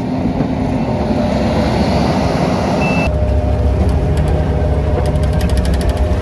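A steady rushing noise, then, about three seconds in, a heavy machine's engine running with a low, steady rumble, with a quick run of ticks partway through.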